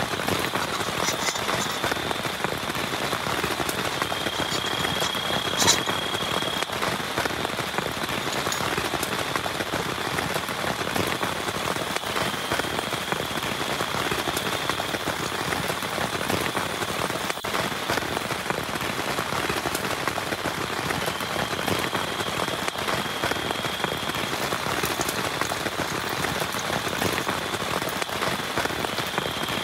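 Heavy rain falling steadily, a dense patter of drops. A thin, steady high-pitched tone comes and goes several times over it, and there is a single sharp knock just under six seconds in.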